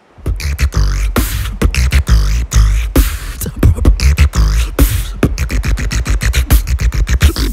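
Loud beatbox-style music with a heavy bass and a fast run of sharp percussive hits, starting abruptly just after the beginning.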